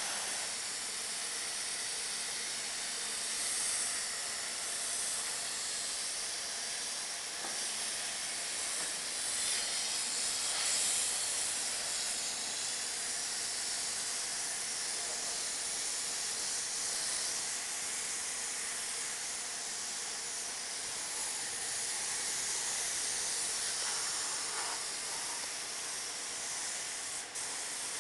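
Rust-preventive oil being sprayed onto a machine tool: a steady hiss of spray with small swells in strength.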